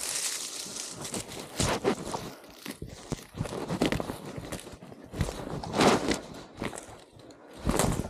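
Footsteps on rough ground: a loud step about every two seconds, with smaller scuffs between.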